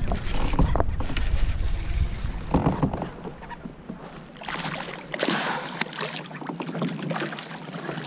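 Water lapping and splashing around a Native Watercraft Propel Slayer pedal kayak's hull, with a few short knocks. A low rumble fills the first two seconds or so, then dies away.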